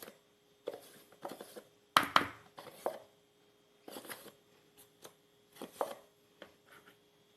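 Kitchen utensils knocking and scraping in a few short bursts, the loudest about two seconds in, as ingredients are added to a bowl.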